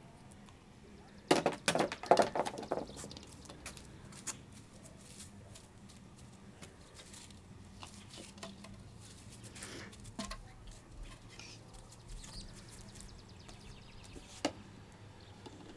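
A quick run of hollow plastic knocks and clatter about a second in: a plastic toy bat striking a ball off a plastic batting tee, and the ball bouncing away. Then faint scattered taps, with one sharp click near the end.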